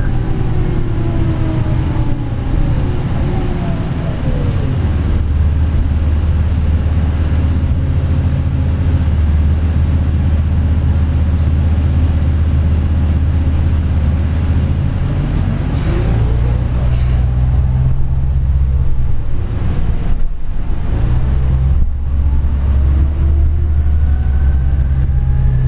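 Interior sound of a Flyer DE41-LF diesel-electric hybrid city bus under way: a steady low diesel drone with the electric drive's whine gliding down as the bus slows and climbing again as it picks up speed.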